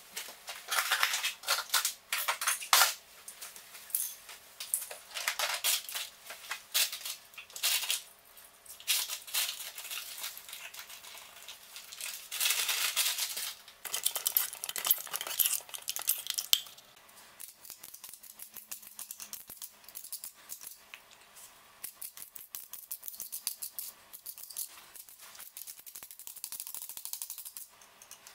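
Clinking and scraping of a tool against a glass jug as tile grout is mixed, in irregular loud bursts. After about two-thirds of the way through it gives way to fainter, finer scraping as a spatula works grout into a floor tile joint.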